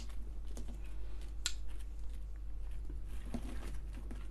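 Cardboard food box and paper packaging being handled: scattered light clicks and rustles, with one sharp click about a second and a half in.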